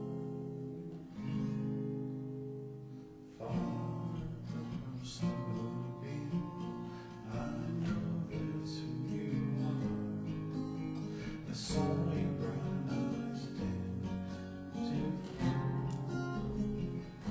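Acoustic guitar music: chords plucked and strummed, each left to ring before the next.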